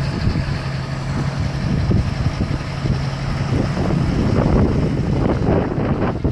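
Fire engine pulling out of the station bay, its engine running with a steady low hum that turns to a rougher rumble over the last two seconds as the truck comes out. Wind buffets the microphone throughout.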